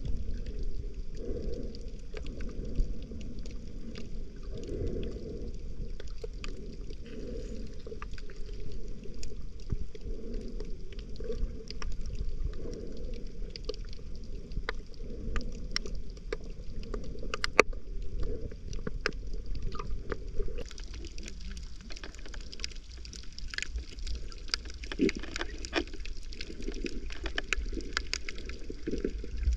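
Underwater ambience picked up by a camera held below the surface: a steady, muffled low rush of moving water with scattered sharp clicks and crackles, which come more often in the second half.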